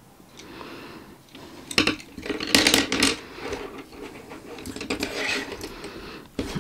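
Wooden Caran d'Ache colored pencils clicking against each other and rubbing as they are handled, with clusters of clatter as they are set down on a wooden desk.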